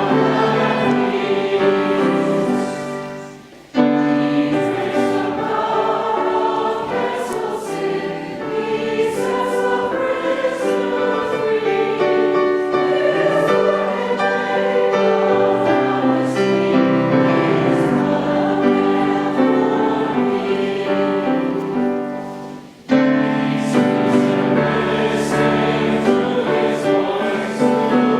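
A group of voices singing a hymn in sustained notes. The singing dies away briefly twice, about four seconds in and again a little after twenty-two seconds, then starts up again.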